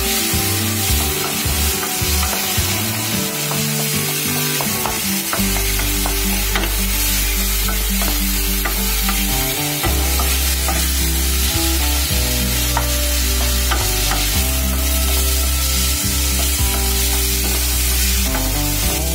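Onion-tomato masala with spices sizzling in a non-stick kadai while a spatula stirs and scrapes it. Background music with held bass notes plays alongside, stronger from about five seconds in.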